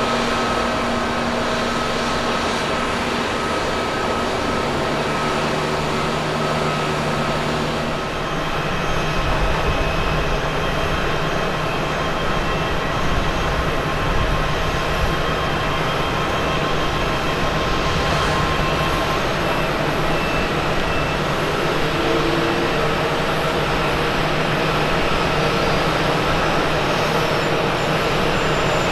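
Steady jet airliner engine noise: a Boeing 777-300ER with its GE90 engines on the runway, then after a change about eight seconds in, an Airbus A350-900 with Rolls-Royce Trent XWB engines approaching to land, a low steady rumble with faint high whines.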